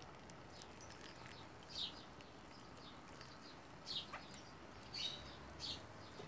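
Faint, short, high bird chirps, a few of them a second or so apart, some sweeping down in pitch, over a quiet background.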